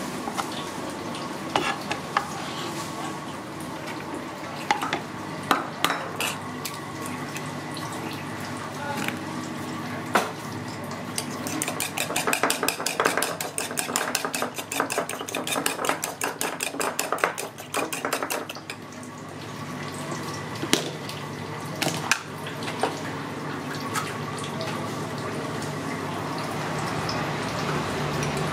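A cleaver knocking on a cutting board as spring onions and chilli are chopped, scattered sharp knocks, then a metal utensil beating eggs in a ceramic bowl, a fast run of clicks lasting several seconds about halfway through.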